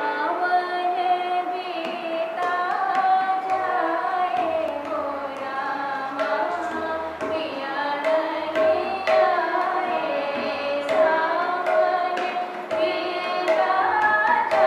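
A woman sings a kajri, a folk song of Uttar Pradesh, with a melodic line that bends between notes. A harmonium sustains chords beneath her and a hand drum beats a steady rhythm.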